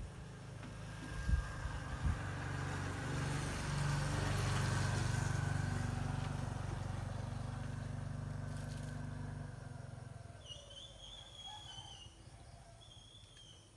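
Engine of a passing motor vehicle, growing louder and then fading away about ten seconds in.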